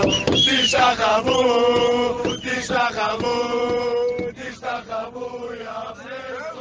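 Football supporters chanting a terrace song in unison, with long held sung notes; it fades out steadily toward the end.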